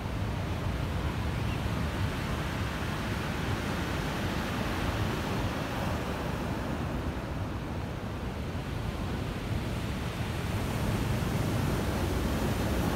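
Storm surf breaking and washing over a pebble beach, a steady noise that grows louder near the end as a big wave breaks.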